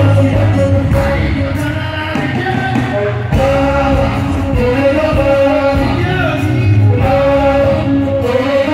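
Live music played loud through a concert PA system, with singing over the band track.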